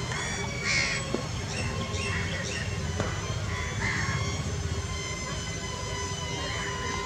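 Crows cawing several times, with the loudest call about a second in. A steady high tone and low wind rumble run underneath.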